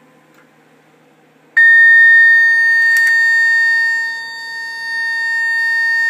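Loudspeaker on a homemade intruder alarm panel sounding a single steady high-pitched beep tone as the system is set, starting about a second and a half in. There is a brief click about three seconds in.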